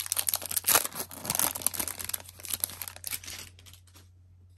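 Foil trading-card pack wrapper crinkling and tearing as it is opened by hand, a dense crackle that dies away about three and a half seconds in.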